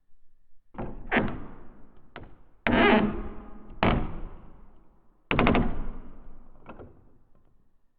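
Wooden door giving a series of heavy thuds and knocks, about seven, some in quick doubles, each trailing off in an echoing decay. The loudest hits come about three and five seconds in.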